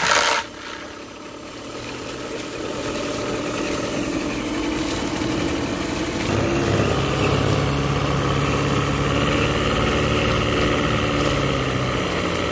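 Mercury two-stroke outboard pull-started: a sharp burst as the cord is yanked, then the engine runs on, getting louder about six seconds in, with its lower unit churning water in a test barrel.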